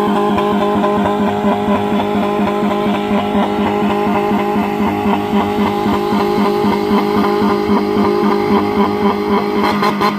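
Loud music with a steady, quick pulsing beat and guitar-like tones over a sustained drone; the beat turns sharper near the end.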